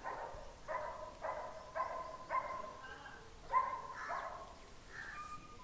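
A dog barking repeatedly, about two barks a second, with a short pause about three seconds in.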